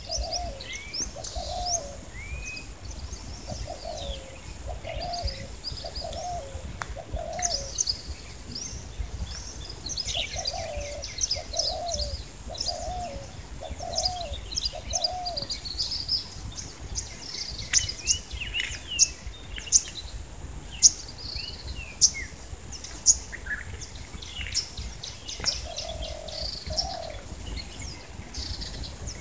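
Birds chirping and singing over one another, with a dove cooing in runs of short repeated phrases, twice in the first half and again near the end.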